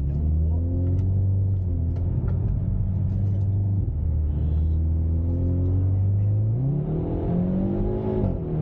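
Hyundai Veloster N's stock turbocharged 2.0-litre four-cylinder engine, heard from inside the cabin, running steadily at low revs, then revving up about two-thirds of the way in. Its pitch dips briefly near the end before it settles at higher revs.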